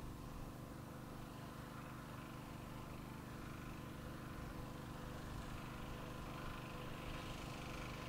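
Steady, quiet hum of distant road traffic, even throughout, with no distinct events.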